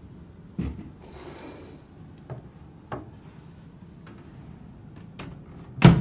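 Glass bowl being taken out of a microwave oven and handled on a wooden table: a knock about half a second in, a short scrape, a few light clicks, and a sharper, louder knock near the end.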